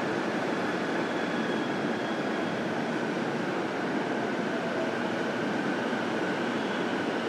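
JR East E233-7000 series electric train running steadily, heard from inside a motor car: a constant rumble of wheels on rail with a faint steady whine.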